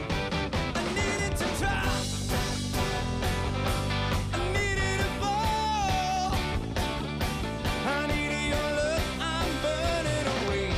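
Rock band playing live: drums keep a steady beat under electric and acoustic guitars and bass, with a wavering vocal line sung over it.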